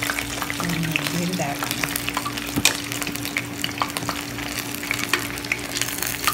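Batter-coated cauliflower pieces deep-frying in hot oil on their second fry, a steady dense crackling sizzle, with one sharp click about two and a half seconds in.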